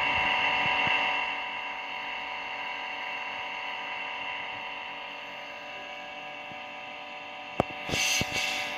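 A steady machine whine made of several even tones, a little louder for the first second. Near the end a single sharp click is followed by a short burst of rustling noise.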